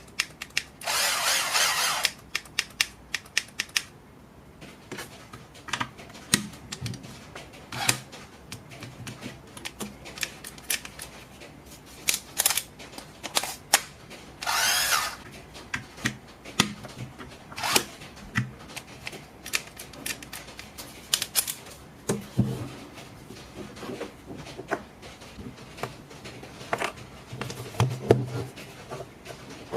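Clicks, taps and knocks of a cordless drill and hand tools being handled and worked on. Two brief noisier bursts come about a second in and near the middle.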